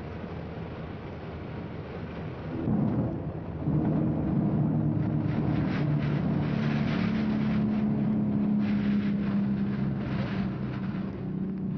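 Max Holste Broussard's radial engine and propeller running as the plane lands and rolls out. A low rumble for the first few seconds, then louder from about three seconds in, with a steady pitched drone that eases off near the end.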